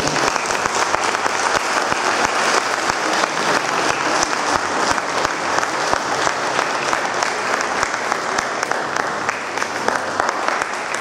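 Audience applauding, many hands clapping at a steady level, stopping suddenly near the end.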